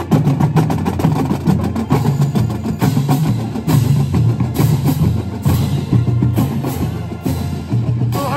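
School marching band playing as it passes, with a drumline beating steadily under loud low brass notes such as sousaphones.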